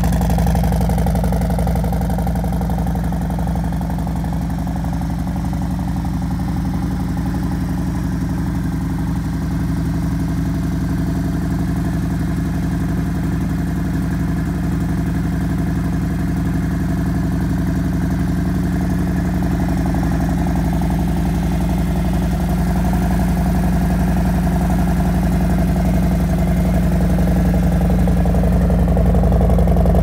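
Harley-Davidson V-twin engine idling cold through a Vance & Hines Pro Pipe 2-into-1 exhaust that has a year and 3,500 miles on it, running loud and steady.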